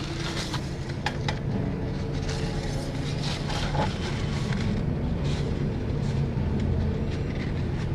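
A steady low drone like an idling vehicle engine, with a few light clicks and paper-towel rustles as the oil dipstick is wiped and handled.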